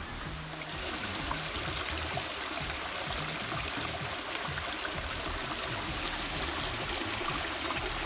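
Small rocky stream trickling and splashing over boulders, a steady rush of running water that swells slightly about half a second in.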